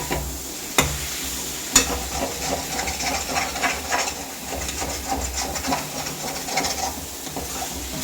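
Boiled chicken masala being stirred and scraped around a frying pan while it sizzles in oil, with two sharp knocks on the pan about one and two seconds in and quick scraping strokes after.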